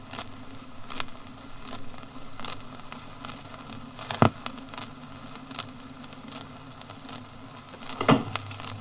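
Scattered single gunshots from a war-effects recording: a few faint cracks, one sharp loud shot about four seconds in, and two more shots near the end, over the steady hiss and hum of an old archive disc.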